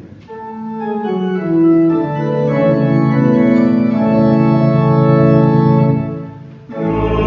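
Organ playing slow, sustained chords that change step by step, fading briefly about six and a half seconds in before fuller music starts again near the end.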